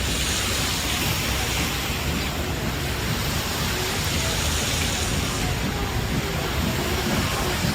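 Steady hiss of city street noise, brighter for the first two seconds or so.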